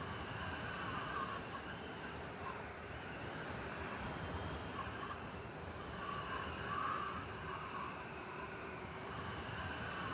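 Blizzard ambience in a city: a steady rush of wind-driven noise over a low rumble. Faint higher whistling tones swell and fade a couple of times.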